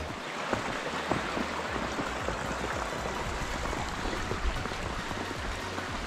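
Mountain stream rushing steadily, with a few faint clicks over it.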